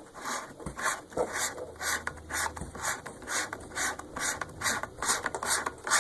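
A threaded wide-angle and macro converter lens being screwed onto a 52 mm stepping ring, its threads making a series of short scraping, ratchety rubs about three times a second.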